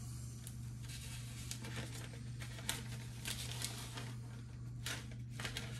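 Book pages being leafed through while searching for a passage: a few short, crisp paper rustles over a steady low hum.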